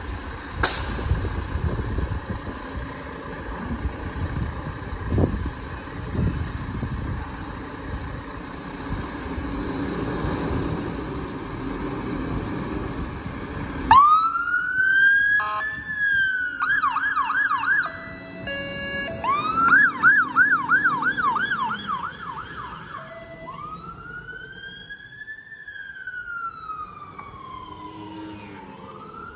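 A fire engine's diesel engine runs with a low rumble in the station bay. About halfway through, its electronic siren comes on: a slow wail sweeping up and down, then a fast yelp, a few short flat horn tones, the yelp again, and finally the slow wail as it pulls away.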